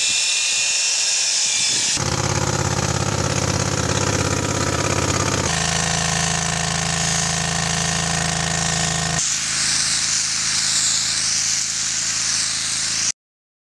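An electric drill spinning a mixing paddle in a bucket of rubber granules and polyurethane binder, a steady high whine. Then an engine-driven spray machine runs steadily for several seconds, and near the end the spray gun hisses as it lays the polyurethane coat, before the sound cuts off suddenly.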